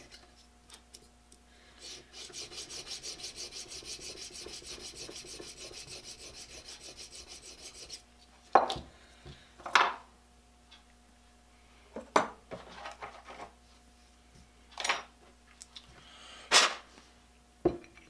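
600-grit sandpaper glued to a small steel bar, stroked quickly back and forth to polish the damaged corners of a steel three-jaw lathe chuck jaw. It runs evenly for about six seconds, then stops, and about six sharp metal clinks and knocks follow as the jaw is handled at the chuck.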